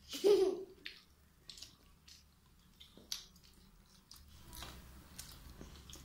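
A child gives a short voiced sound, then eats, with faint chewing and mouth clicks.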